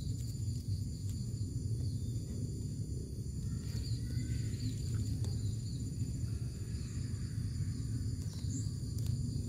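Outdoor garden ambience: a steady low background rumble, with insects trilling in high, even tones and a few faint bird chirps in the middle.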